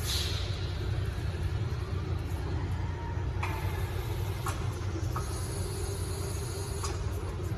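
Toyota 7FBL15 electric forklift lowering its raised mast and forks: a steady low rumble, a hiss at the start, then several short sharp clicks.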